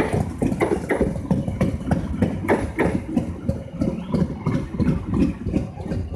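Train at a station: diesel engine running, with an irregular clatter of knocks several times a second.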